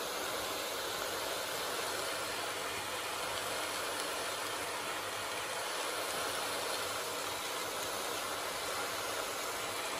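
A steady, even hiss in the kitchen, unchanging throughout, with no knocks or clatter.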